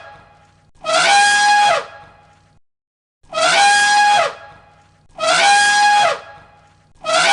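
A loud animal call, about a second long and repeated every two seconds or so, each with a quick rise in pitch, a steady held note and a drop at the end.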